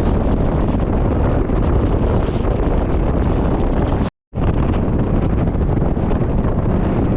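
Loud wind rumble buffeting the microphone, a steady roar with no pitch. It cuts off abruptly about four seconds in and resumes a moment later.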